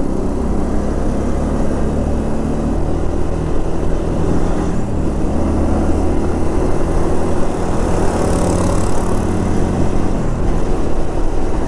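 Motorcycle engine running while riding, its pitch steady with a few small shifts, under a constant haze of wind and road noise.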